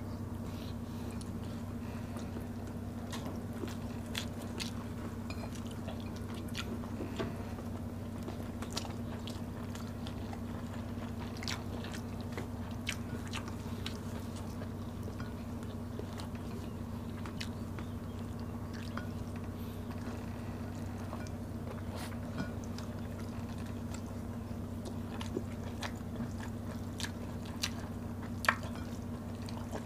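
Close-up eating sounds of people eating fried fish and rice by hand: soft chewing and lip smacking with scattered small clicks and crunches, the sharpest near the end. A steady low hum sits under it.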